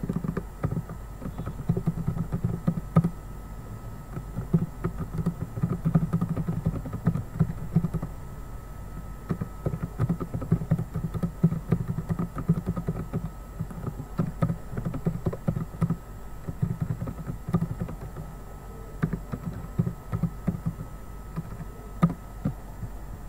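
Typing on a computer keyboard: quick runs of keystrokes with brief pauses between them, over a faint steady electrical hum.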